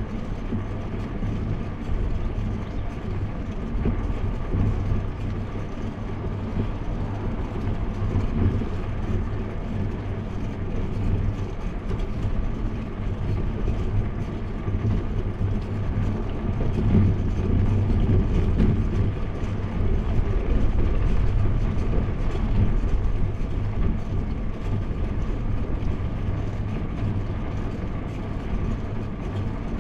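Wind and road noise picked up by a bicycle-mounted GoPro's microphone while riding on asphalt: a steady low rumble, swelling a little around the middle.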